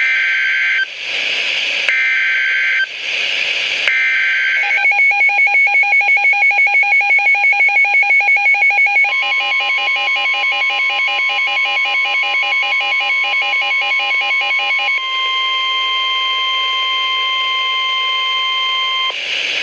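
NOAA Weather Radio emergency alert: three short screeching data bursts with radio hiss between them, then about four seconds of fast beeping, then a long steady warning alarm tone that cuts off near the end.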